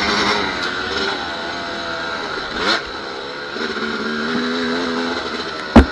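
Yamaha dirt bike engine running under way, revving up and down so its pitch rises and falls. A single sharp knock comes near the end.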